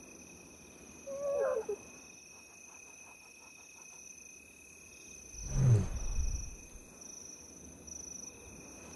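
Lions' soft calls: a short, wavering, higher-pitched call about a second in, then a louder, low call from a lioness around the middle, the gentle calling that tells cubs it is safe to come out. Crickets trill steadily throughout.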